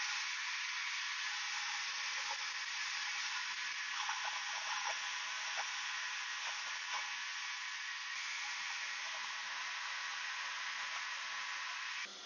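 Myford Super 7 lathe running while the tool takes a very fine cut on a brass part, heard as a steady hiss with a few light clicks. The hiss stops abruptly near the end.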